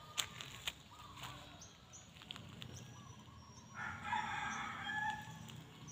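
A rooster crowing once, one long call starting a little under four seconds in and lasting about a second and a half, with two sharp clicks near the start and faint high chirps of small birds.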